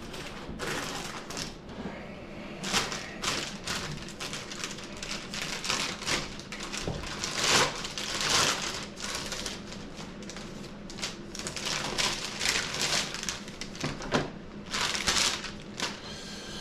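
A package being opened and handled by hand: a run of irregular clicks and taps with longer rustling scrapes, the longest around the middle and near the end.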